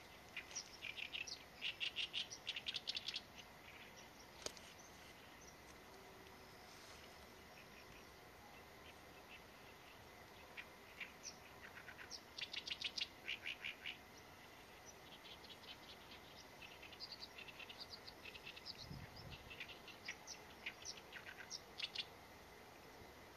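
Oriental reed warbler singing its harsh, chattering song of rapidly repeated grating notes in three bursts, with pauses of several seconds between them.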